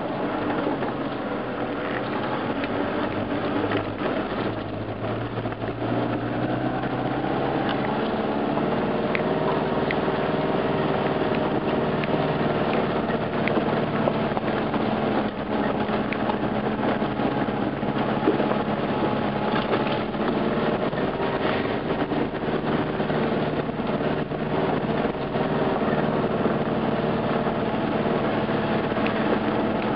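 A 4x4's engine running steadily while driving off-road. Its pitch rises about six seconds in and then holds, with scattered short knocks over it.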